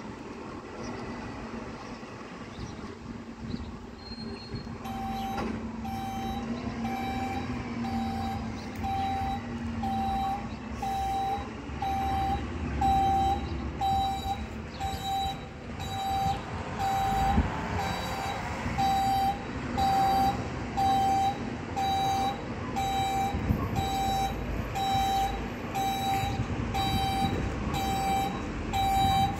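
Fire engine's reversing alarm beeping in an even rhythm, a little over one beep a second, starting about five seconds in, over the truck's engine running as it backs up.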